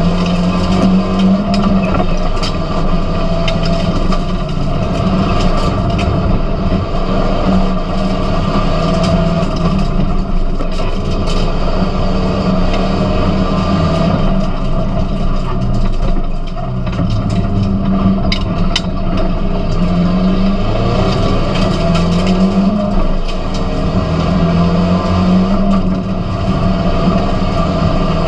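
SEAT León Supercopa race car engine at full racing pace, heard from inside the cabin, revs climbing and dropping over and over through gear changes and corners, with road noise and a few sharp clicks.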